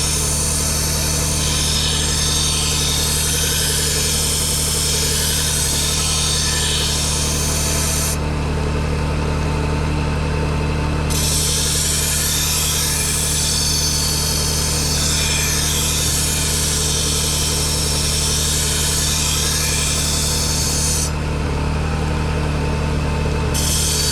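1x30 belt sharpener running with a steady motor hum while a blade is ground against the belt, with a grinding hiss that stops twice for a few seconds as the blade is lifted off.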